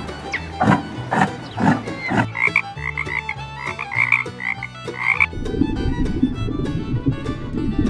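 Frog croaking in quick, repeated calls over a background music track, then a low, rough rumbling noise for the last couple of seconds.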